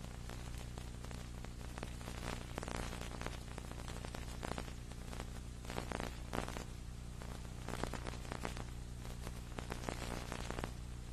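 Steady electrical hum with hiss and irregular crackling static: the match's audio track has dropped out, leaving only line noise.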